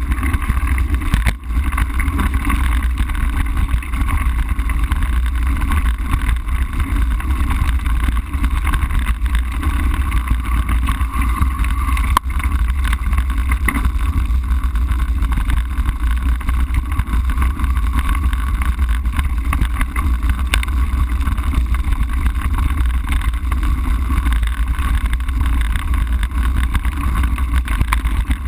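Wind rumbling on the microphone of a bicycle-mounted camera, with the rattle and crunch of mountain bike tyres rolling over a loose gravel road.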